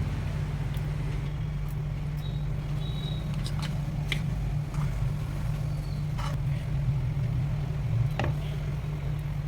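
A steady low hum runs throughout, with a few light clicks and taps, about four of them spread through the middle and latter part, most likely a utensil on the pan as butter is added to milk.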